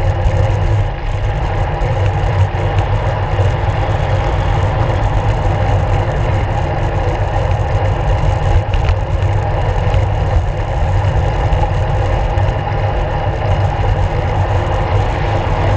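Steady low wind rumble and tyre noise from riding a road bike at speed, picked up by a handlebar-mounted action camera.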